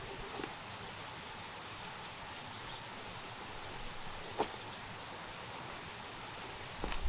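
Insects chirring steadily in the background, with a faint, steady high-pitched drone. A single short click comes a little over four seconds in.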